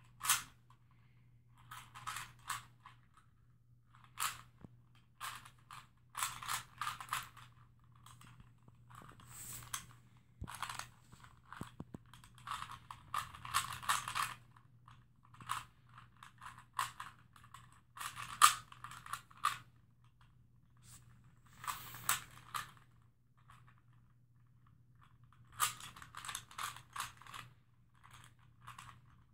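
A 3x3 Rubik's Cube being turned quickly by hand: the plastic layers click and rattle in clusters of rapid turns, broken by short pauses.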